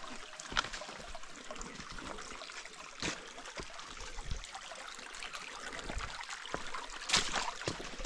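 Steady running water from a stream, with scattered short knocks and clicks, the loudest about seven seconds in.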